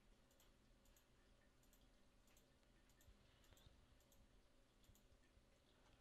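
Near silence with faint, irregular short clicks.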